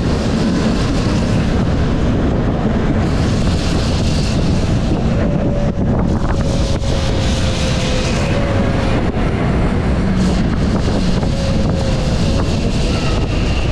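Steady wind rush over a roof-mounted camera microphone, mixed with the running noise of the 1906 'Big Ben' double-decker tram No. 47 moving along its track. A faint thin tone, slowly falling in pitch, comes in about five seconds in and again briefly later.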